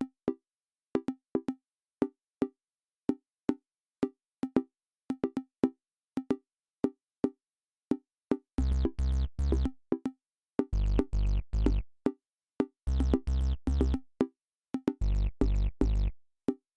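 Electronic background music: a sparse pattern of short synth or wood-block hits, joined about halfway through by heavy bass notes in groups of three.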